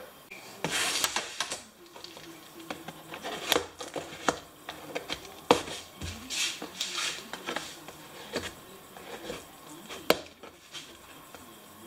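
Small screwdriver scraping and jabbing along the packing tape of a cardboard box to slit it open: irregular scrapes, taps and short tearing rasps, with a sharp click about ten seconds in.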